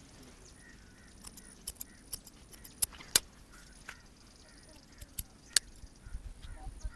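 Barber's scissors snipping hair in irregular, quick metallic snips, with pauses between runs; the loudest snip comes about three seconds in.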